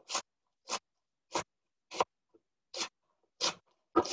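Large kitchen knife slicing a wedge of purple cabbage thin on a plastic cutting board: a crisp crunch with each stroke, about seven even strokes, roughly one and a half a second.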